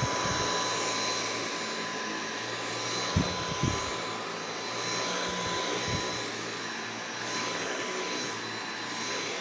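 Dyson V8 Animal Extra cordless stick vacuum running steadily on carpet, a rushing airflow with a high, fixed-pitch motor whine. A few short low knocks come about three, four and six seconds in.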